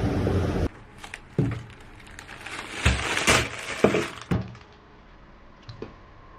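A steady rushing noise that cuts off suddenly under a second in, then scattered knocks, clicks and light clinks of objects being handled, with one brief rustling burst around the middle.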